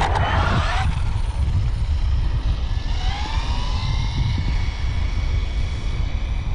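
High-pitched whine of an electric RC speed car's brushless motor, sliding down in pitch about three seconds in and then holding steady. A short loud rushing burst comes in the first second, and heavy wind rumble on the microphone runs underneath.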